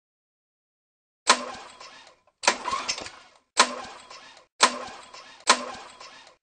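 Lawn mower sound effect: five short bursts about a second apart, each starting sharply and dying away in under a second, like repeated pull-start attempts that cough but don't catch.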